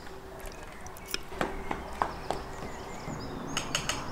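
Metal cutlery clinking and scraping on ceramic plates: a handful of light, separate clicks, then a quick run of three or four near the end.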